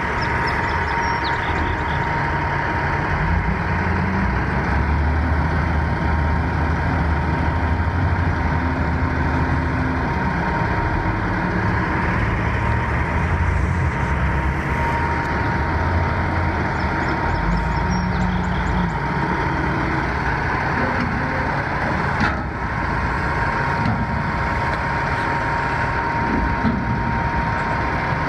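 Heavy diesel engine running steadily at low revs, its low rumble wavering a little, with a constant high whine over it.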